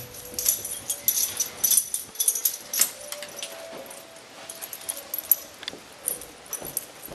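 Small terrier-mix dog moving about with a plush toy in its mouth: many quick clicks and taps as it goes, and a brief thin whine about halfway through.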